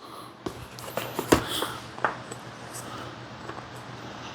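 Handling noise: a few light knocks and clicks between about half a second and two seconds in, over a faint steady hum.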